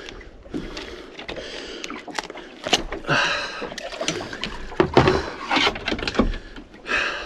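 Irregular knocks and clatter with short bursts of rustling on a small fishing boat, as a landed fish and gear are handled.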